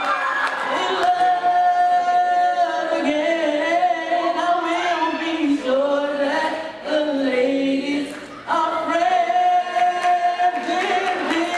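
High school choir singing, several voices on different pitches at once holding long notes, with a short break between phrases about eight seconds in.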